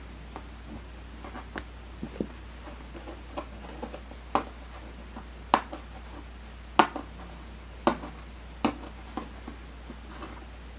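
Irregular clicks and taps of packaging and plastic parts being handled, with a handful of sharper knocks in the middle.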